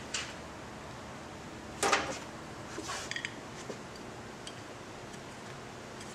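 Handling noise from a metal cheese-wedge bracket with bolts fitted being turned over in the hands: one short, louder scrape about two seconds in, then a few light clicks, over a low steady background hiss.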